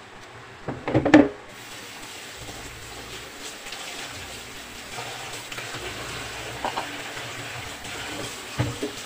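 A short loud clatter about a second in, then a kitchen tap running steadily into a plastic basin as freshly butchered chicken is rinsed by hand under it, with small splashes and knocks.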